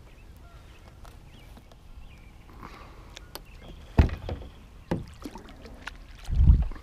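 Kayak paddle strokes in calm water: low handling noise, then a sharp knock and splash about four seconds in, another about a second later, and a heavier stroke near the end.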